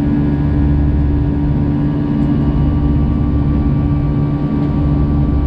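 Airbus A321-200's jet engines heard inside the cabin during the climb after takeoff: a loud, steady roar with a few held low hums over it.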